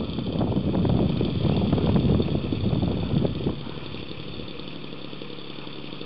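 Engine of a 2.5 m-span radio-controlled Piper Cub model running on the ground, louder for the first three and a half seconds, then throttled back to a steady idle.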